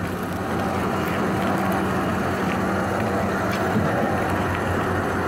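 Trailer winch running steadily under load, dragging a log onto a utility trailer.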